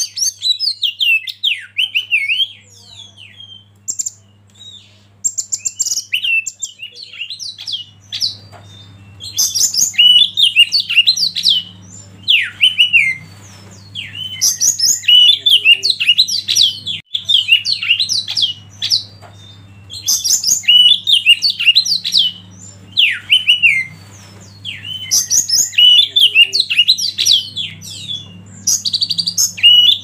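Oriental magpie-robin singing: a few scattered notes at first, then repeated bouts of rapid, varied whistles and chattering notes, each about two seconds long with short pauses between, over a faint low hum.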